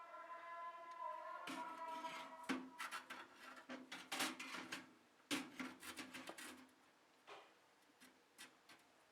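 Clicks, knocks and rubbing of hard objects being handled, dense for several seconds and thinning to a few scattered ticks near the end. A steady tone with overtones fades out in the first second or so.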